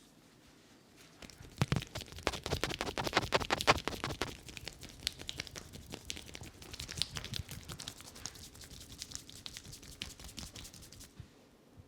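Hands working vigorously over the head and hair in an Indian head massage: a dense run of quick scratchy taps and rubs, loudest in the first few seconds after it starts, then lighter, stopping shortly before the end.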